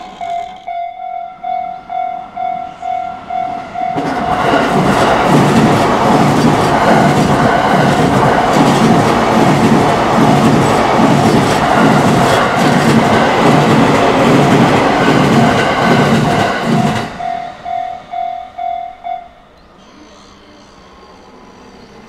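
Japanese level-crossing warning bell ringing in steady pulses about twice a second. A JR Utsunomiya Line electric commuter train passes from about four seconds in to about seventeen seconds, a loud rush with rhythmic wheel clatter over the rail joints. The bell stops a couple of seconds after the train has gone, leaving faint street noise.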